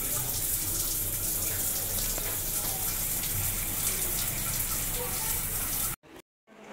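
Water running steadily from a tap fed by a newly installed electric water heater, now delivering hot water; the sound cuts off suddenly about six seconds in.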